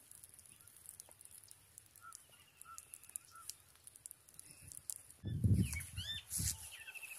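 Wild birds chirping and trilling over a steady high insect hiss, with small crackles from a wood fire. About five seconds in there is a burst of low rustling noise, with a louder curving bird call.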